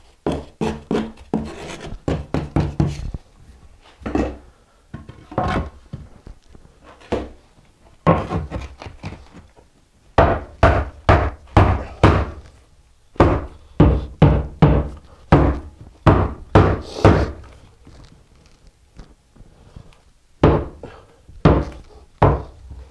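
Rubber mallet striking a 2x4 to drive it down into sand-mix deck mud for a shower pan: a series of dull thuds, a steady run of about two a second through the middle and a few more near the end.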